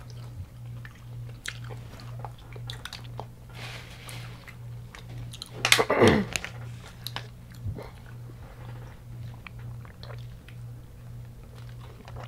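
Close-up chewing and crunching of deep-fried, Hot Cheeto-crusted food, a run of small crisp crunches. About halfway through there is one short, louder sound falling in pitch.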